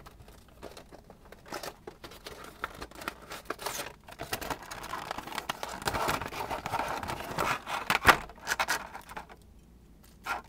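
A diecast model airliner being unpacked: its packaging rustles and crinkles with scattered clicks and scrapes, busiest from about four to nine seconds in, with a sharp knock near eight seconds.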